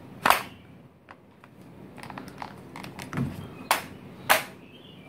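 Sharp plastic-and-metal clicks from the stock of a WE SCAR-L gas blowback airsoft rifle being worked by hand. There is one loud click early, lighter clicks and a dull knock in between, and two more sharp clicks close together near the end.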